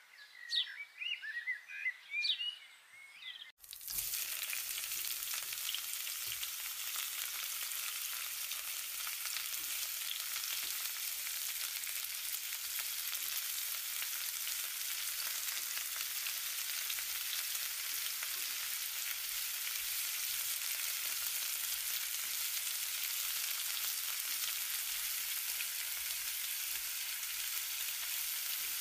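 Garlic-ginger paste and sliced onions frying in hot oil in a stainless steel kadai, a steady sizzling hiss that starts about four seconds in.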